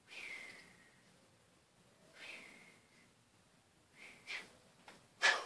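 A person blowing out breath in about four short, hissing puffs a second or two apart; the last, near the end, is the loudest and sharpest.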